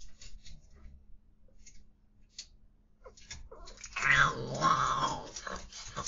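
Faint ticks and scuffs of paws on a plastic cage floor, then about four seconds in a cat starts a loud, drawn-out yowl that wavers in pitch: a cat's cry during mating.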